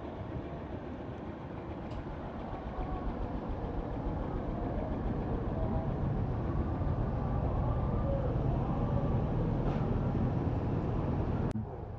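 Low, steady rumble of vehicle road noise, slowly growing louder, that cuts off abruptly near the end.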